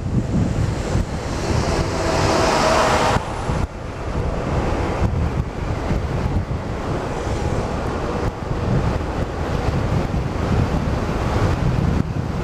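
Wind buffeting the microphone of a camera on a moving motor scooter, a steady low rumble. In the first three seconds a louder hiss with a steady hum rises over it and cuts off abruptly.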